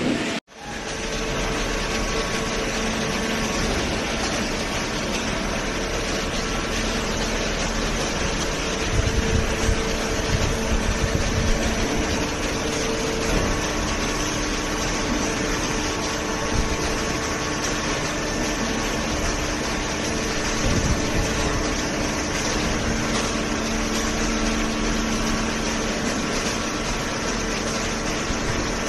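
Horizontal waste paper baler running, its hydraulic power unit giving a steady mechanical hum with held tones. Low thumps come between about nine and twelve seconds in, and again briefly near twenty-one seconds.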